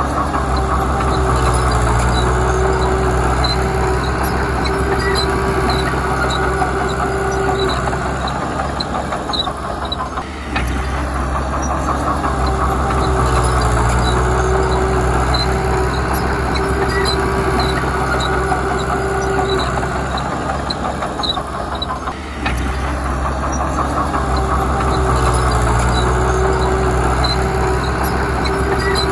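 Heavy diesel earthmoving machinery running hard under load, easing off briefly twice in a repeating cycle, with a steady whine over the engine.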